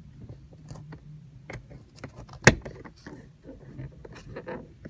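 Plastic map light lens of a car's overhead console being pried loose with a plastic trim tool: small scattered clicks and scrapes, then one sharp loud snap about two and a half seconds in. A steady low hum runs underneath.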